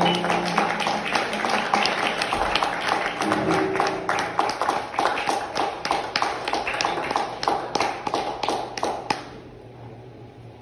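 Small audience clapping after a jazz tune, a dense patter of claps that dies away about nine seconds in. A held low note from the band fades out in the first couple of seconds.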